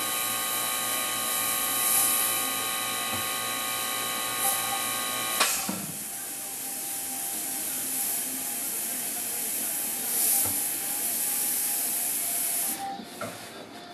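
Airbrush hissing as it sprays, swelling and easing several times and dropping away near the end. Underneath, a steady machine hum stops with a click about five seconds in.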